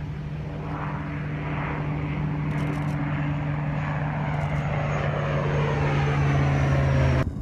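General Atomics MQ-9 Reaper's turboprop engine and pusher propeller, flying low overhead: a steady propeller hum with a faint high turbine whine. It grows louder as the aircraft approaches, then cuts off suddenly near the end.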